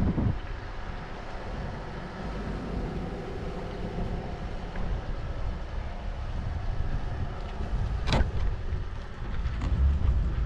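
Jet ski engine idling at slow speed with a steady low rumble, wind buffeting the microphone. A sharp knock about eight seconds in.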